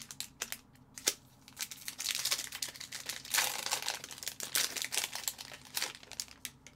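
Foil hockey card pack wrapper being torn open and crumpled by hand: a few sharp crackles, then a dense run of crinkling from about two seconds in.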